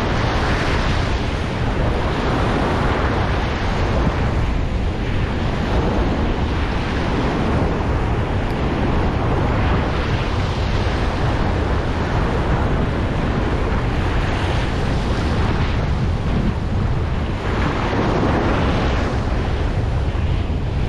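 Ocean surf breaking and washing on the shore, swelling and easing every few seconds, with wind rumbling on the microphone.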